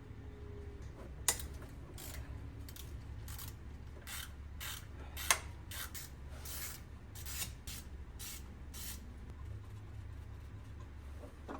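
Hand tools at work on an LLY Duramax engine being taken apart: a run of short rasping strokes with a couple of sharp metal clicks, over a low steady hum.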